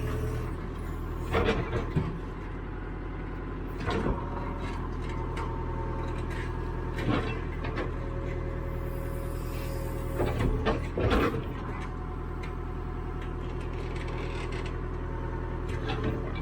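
Caterpillar 428E backhoe loader's diesel engine running steadily while it digs, with a steady whine through the middle and several knocks and clunks, a quick cluster of them about ten to eleven seconds in.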